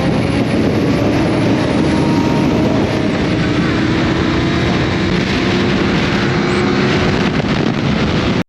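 Motorcycle riding at speed: a steady rush of wind noise with the engine running beneath it. The sound cuts off suddenly near the end.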